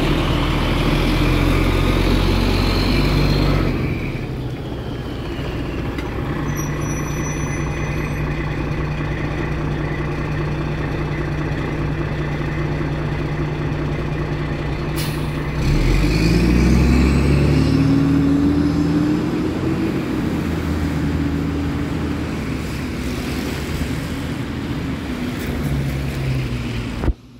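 Fire engine's diesel engine idling steadily, then revving up and pulling away about two-thirds of the way through, with a sharp click just before the revving.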